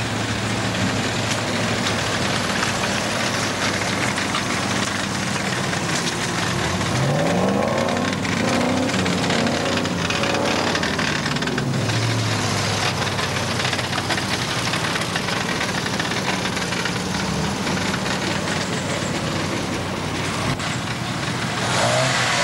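Off-road 4x4 engine running steadily, revving up about seven seconds in, settling back down about four seconds later, and revving up again near the end.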